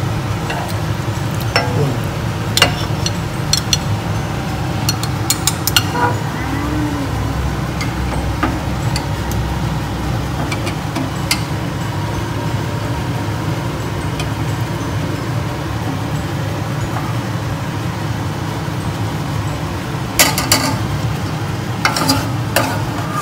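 Utensils clicking and clinking against a pan and plate as cooked salmon in tomato sauce is lifted out and plated, a few scattered clicks and then a burst of them near the end. A steady low hum runs underneath.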